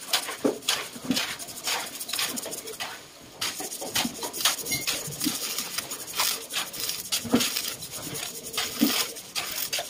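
Irregular scraping and light clinking strokes of hand work, with a short pause about three seconds in.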